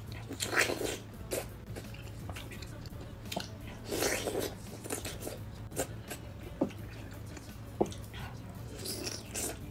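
Close-up biting and chewing of a juicy piece of oden daikon radish. The wet mouth sounds come in a few louder bursts among smaller clicks and smacks.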